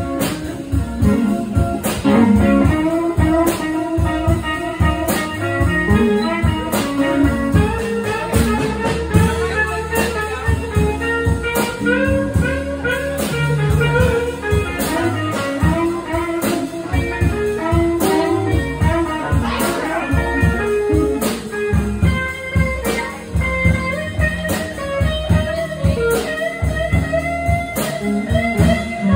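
Live blues band playing, led by guitar, with drums keeping a steady beat.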